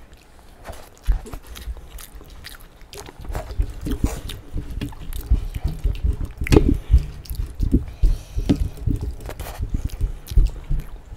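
Close-up eating sounds of two people eating rajma chawal by hand: chewing, with fingers mixing rice on steel plates, in short, irregular wet clicks and smacks.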